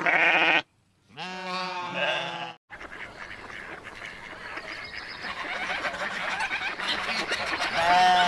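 Lambs bleating twice: a short call, then a longer one about a second later. A hissy, crackling noise follows and grows louder, with a short honk-like call near the end.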